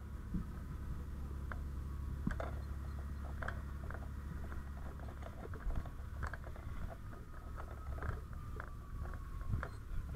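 Scattered knocks, scuffs and rattles of a firefighter's boots and gear as he climbs off an aerial ladder onto a flat roof, over a steady low drone.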